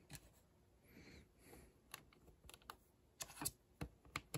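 Faint, scattered clicks of LEGO plastic pieces being handled and pressed back into place, a few of them more in the second half.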